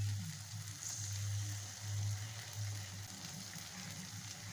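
Onion and tomato frying in oil in a kadai, a faint steady sizzle as ground dried red chilli goes in, over a steady low hum.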